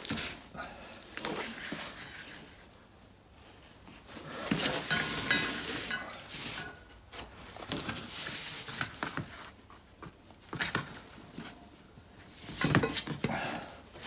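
Handling noises as a steel anti-roll bar is moved about on a cardboard-covered bench and a lubricated rubber bush is pushed onto it: irregular rubbing and scraping with a few knocks, the loudest near the end.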